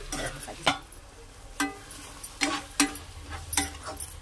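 A spatula stirring cooking tomatoes and coriander in a nonstick pan, knocking against the pan about six times at uneven intervals, each knock with a short ring.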